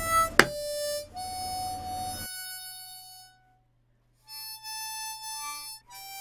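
Background harmonica music playing slow, held notes, with a short pause midway. Near the start, two sharp knocks a fraction of a second apart: a mallet striking a leather-stamping veiner tool.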